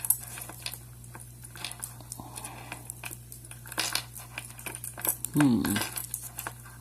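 Metal warded key clicking and scraping in the keyway of a vintage Yale padlock as it is wiggled and turned, with light metallic clinks. A short falling hum from a person about five seconds in, over a steady low electrical hum.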